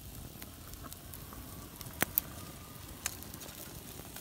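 Wood fire crackling and popping under marinated chicken pieces on a wire grill rack: a steady low hiss with scattered sharp pops, the two loudest close together about two seconds in.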